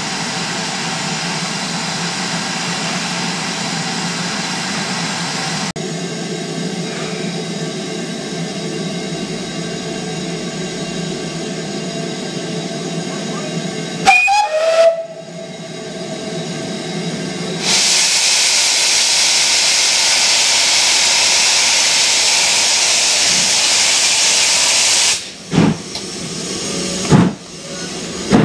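GWR Grange-class 4-6-0 steam locomotive 6880 Betton Grange standing in steam, with a steady simmer, a short whistle blast about halfway through, then a loud steady hiss of escaping steam for several seconds. Near the end come its first slow exhaust beats, about a second and a half apart, as it starts away.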